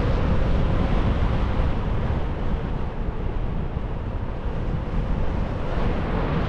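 Steady wind noise from the rush of air over the microphone of a paraglider pilot in flight, with no motor heard.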